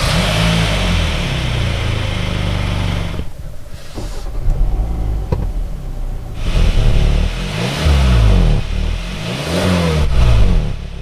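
Kia Sorento's engine running, then revved up and down several times in the second half, each rev rising and falling in pitch.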